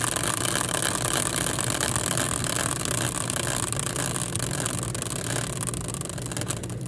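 Prize wheel spinning, its pointer ticking rapidly in a continuous whirr, the clicks gradually thinning out and getting quieter as the wheel slows.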